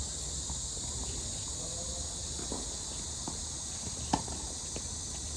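Tennis ball being played on a court: a few light knocks, then one sharp racket strike about four seconds in, over a steady high hiss.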